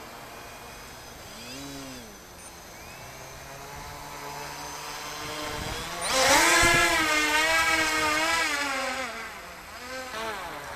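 Whine of an RC boat's Turnigy 2822 1400kV brushless motors spinning air propellers, rising and falling in pitch with the throttle. A short blip comes near two seconds. About six seconds in the whine jumps up sharply and runs loudest for about three seconds with a wavering pitch, then drops away and rises briefly again near the end.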